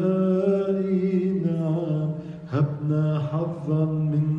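A priest's solo liturgical chant: one male voice singing long, sustained notes, with a short break about halfway through.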